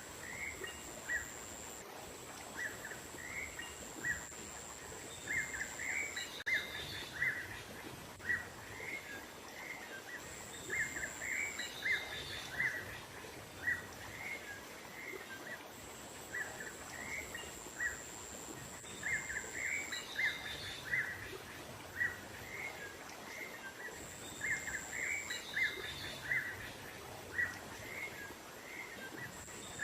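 Small songbirds chirping in quick, short notes throughout, with a few higher calls now and then, in a recorded bird-lure call. A steady high-pitched whine comes and goes in stretches of a few seconds over a soft outdoor background hiss.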